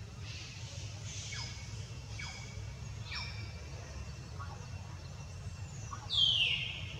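A series of short, high animal calls, each falling in pitch, about one a second. A louder, longer falling call comes about six seconds in. A steady low rumble runs underneath.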